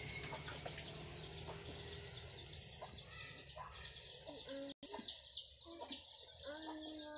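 Chickens clucking with small birds chirping busily in the background. A longer drawn-out call starts near the end.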